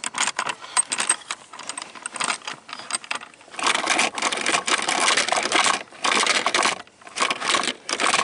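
Rapid plastic and metal clicking and rattling from handling the automatic shifter assembly and its cable linkage, then several scraping, rubbing bursts about a second long each.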